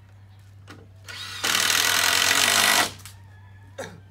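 Power drill running in one burst of about a second and a half into the wooden stud framing. It builds up about a second in, runs steadily, then stops sharply.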